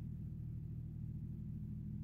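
Steady low electrical hum from a running 2 kVA solar inverter, unchanging throughout.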